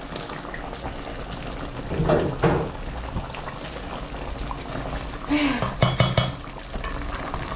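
Pot of matoke stewing in tomato sauce, bubbling steadily under steam, with two brief louder sounds about two seconds and five and a half seconds in.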